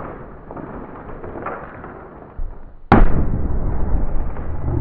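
A hammer blow on frozen, brittle chocolate: one sharp, loud crack about three seconds in, followed by a heavy low rumble. A quieter stretch comes before it.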